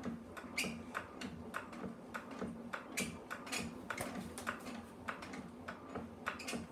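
Potter's kick wheel being kicked round to twist a nylon line: irregular light clicks and knocks, a few each second, over a faint low hum.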